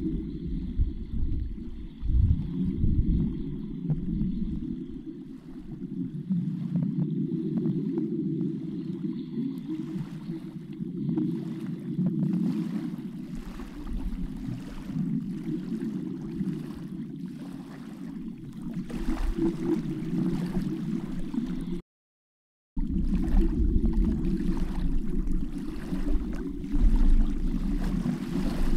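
Underwater ambient noise heard through a submerged camera: a steady low rushing of water with scattered faint clicks, breaking off completely for about a second a little past the middle.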